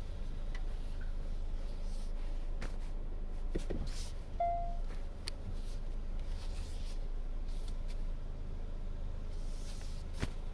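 Steady low hum of a 2020 Hyundai Sonata in the car's cabin, with scattered clicks and one short squeak about four seconds in. The squeak is the brake squeal that this car gives when backing up.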